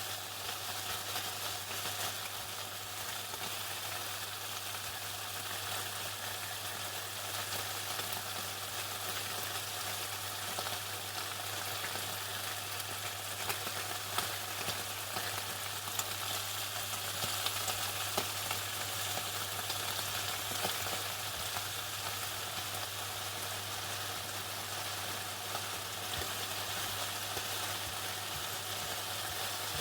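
Chicken frying in hot oil: a steady dense sizzle with small crackles and pops scattered through it, over a steady low hum.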